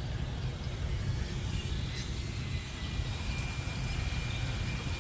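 Outdoor background noise: a steady low rumble with a few faint, thin high chirps over it.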